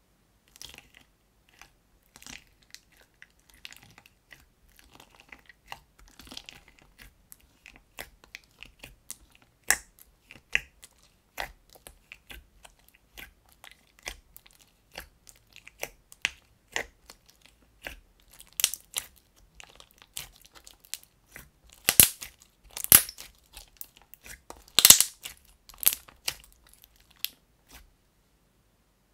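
Fingers poking and pressing into a thick white slime in a plastic tub, making irregular crackling pops and squelches. The slime has polymer clay slices mixed in. The pops come louder and thicker about two-thirds of the way through.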